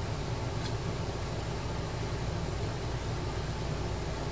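A steady low hum, with one faint click about half a second in.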